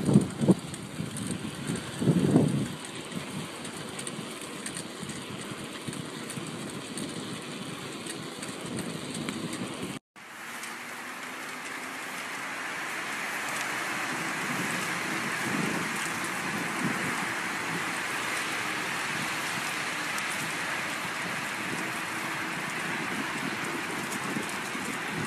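Wind buffeting the microphone in gusts, strongest in the first few seconds. After a cut about ten seconds in, a steady hiss of rain falling on leaves and a wet path.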